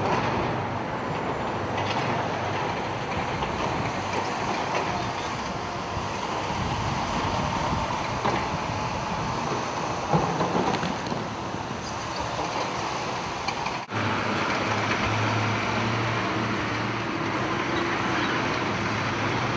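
Road traffic going by steadily, with wind noise on the microphone; a brief dropout about two-thirds of the way through.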